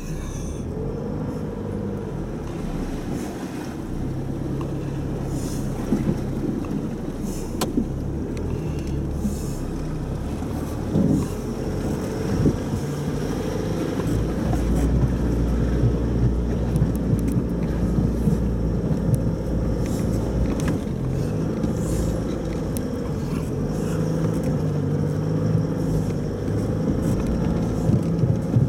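Four-wheel-drive vehicle's engine running at low speed on a rough off-road track, its pitch rising and falling as the throttle changes. Scattered short knocks and rattles come through, and the rumble grows heavier for several seconds in the middle.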